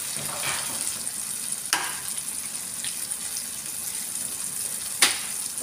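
Chopped onion, tomato and green bell pepper sizzling in a frying pan as eggs are cracked into it. Two sharp knocks come about two and five seconds in, the second louder.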